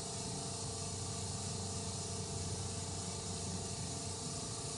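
FASS DDRP electric fuel lift pump on a Cummins 24-valve diesel running with the key on and the engine off, a steady hum under an even hiss. It is holding a little over 20 PSI of fuel pressure at the injection pump, a healthy reading.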